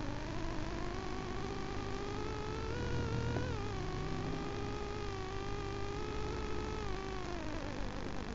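KTM 950 Adventure's V-twin engine under way, its pitch climbing over the first three seconds, dropping sharply about three and a half seconds in, holding steady, then falling away near the end.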